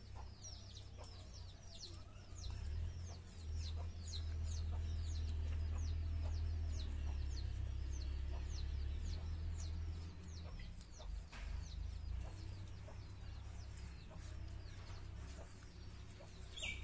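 Birds chirping in quick, high, falling notes, a few a second, with chickens clucking, over a low steady rumble; one louder chirp comes near the end.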